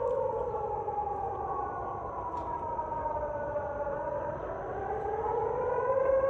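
Civil defense siren wailing: its held tone slowly slides down in pitch through the middle and rises back to the held pitch near the end.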